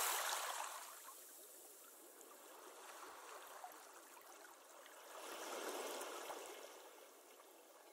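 Faint rushing-water sound with no pitch, fading over the first second and swelling again about five to six seconds in.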